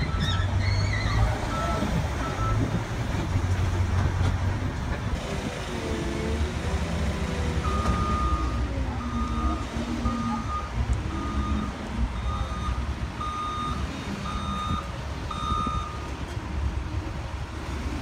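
Diesel earthmoving machinery running at work, the engine note rising and falling under load. From about eight seconds in, a reversing alarm beeps steadily, roughly one beep every three-quarters of a second, for about eight seconds.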